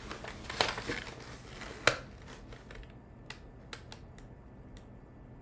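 A few faint, sharp clicks over quiet room tone, the loudest one about two seconds in, then four or five lighter ones spread over the next few seconds.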